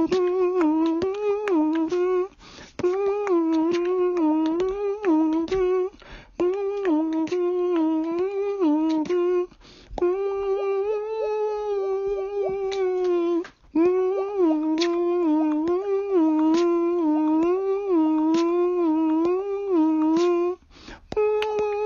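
A person humming a tune: one voice holding and wavering around much the same pitch in long phrases, with short breaks between them.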